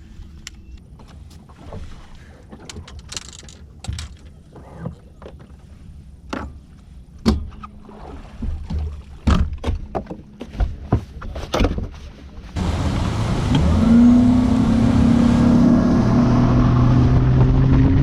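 Scattered knocks and clatter of gear on a boat, then, about two-thirds of the way in, a bass boat's outboard motor running at speed with wind rushing over the microphone, its tone climbing slightly.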